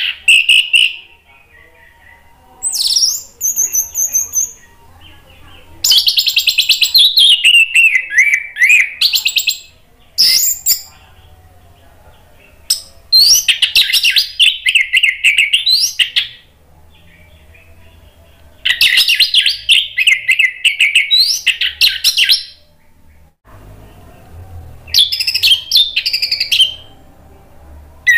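Orange-headed thrush singing in loud, repeated bursts of fast, varied high notes. Each phrase lasts from about a second to a few seconds, with short pauses between them.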